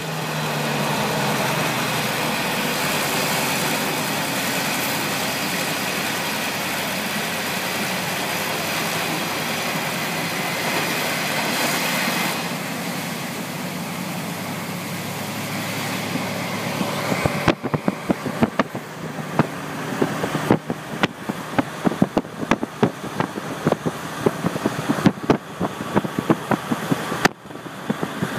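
KiHa 48 diesel railcar running, its engine and running noise loud in the cabin. About twelve seconds in the noise drops, and from about seventeen seconds in it is broken by rapid, irregular sharp crackles and knocks.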